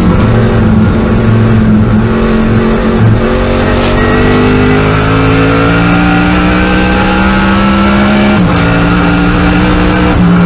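Ford Falcon Trans Am race car's V8, heard from inside the cockpit: it holds a steady pitch through a corner in third gear, then revs up hard under full throttle. About eight and a half seconds in the pitch drops at the upshift to fourth, and it pulls on.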